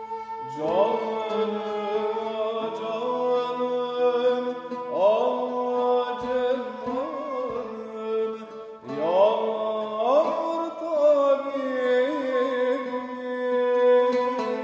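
Ottoman art song in makam Hicaz: male voice singing three long melismatic phrases, each opening with a rising glide about one, five and nine seconds in, over steadily held notes, accompanied by bowed kemençe and lafta.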